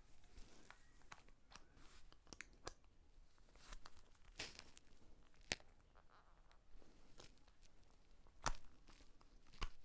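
Plastic parts of a chest-mount harness being handled and fitted together: faint rustling with scattered small clicks, a few sharper clicks now and then, and the loudest click near the end as the mount snaps and locks into place.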